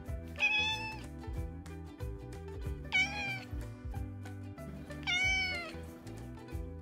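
Domestic cat meowing three times, short calls about two and a half seconds apart, over background music.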